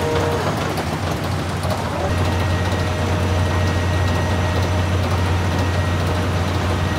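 Hammel VB750DK twin-shaft waste shredder running with little material in it: a steady low diesel-engine drone that gets a little stronger about two seconds in.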